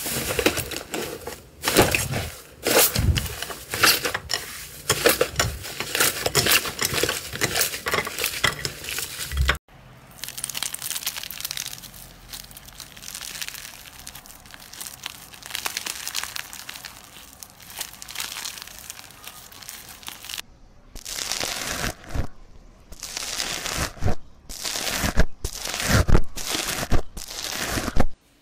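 Slime being pressed, stretched and poked by hand, giving dense crinkly crackling. The texture changes about ten seconds in and again about twenty seconds in. The last part is a string of separate sharp crackles as foam-bead slime is poked.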